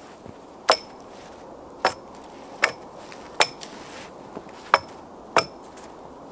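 An axe striking a long wooden pole six times, about one blow a second, each hit sharp with a short high ring.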